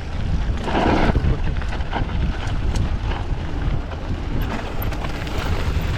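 Heavy wind buffeting on the microphone with a rumbling, clattering ride noise underneath, as from a mountain bike rolling fast down a bike-park trail, with scattered sharp knocks and a louder scraping rush about a second in.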